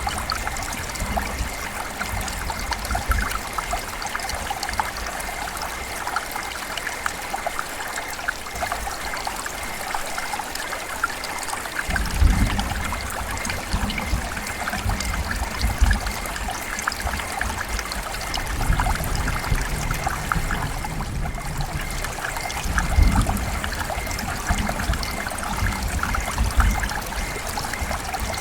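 Heavy rain pouring steadily, with low rumbles of distant thunder swelling about twelve seconds in and again through the second half.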